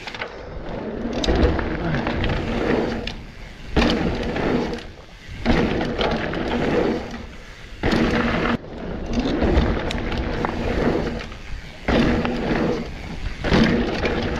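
Mountain bike ridden fast over a dirt jump trail. Tyres rumble on the hard-packed dirt and air rushes past the camera, broken by several sharp knocks as the bike lands jumps.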